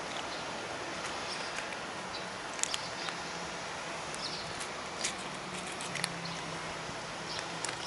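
Quiet steady background hiss with a faint low hum, broken by a few short, faint clicks and scuffs.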